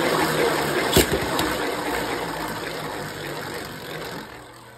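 Two Beyblade spinning tops, Mirage Fafnir and Cho-Z Achilles, whirring and scraping against each other in a plastic stadium, with one sharp clash about a second in. The sound fades steadily toward the end.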